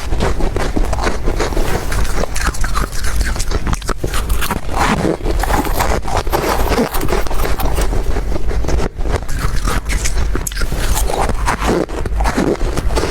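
Ice being bitten and chewed close to the microphone: a steady run of crunches and squeaky bites with no pause.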